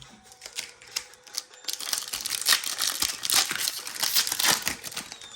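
Foil booster-pack wrapper crinkling as it is handled and opened: a few scattered crackles, then a dense stretch of loud crinkling from about two seconds in until shortly before the end.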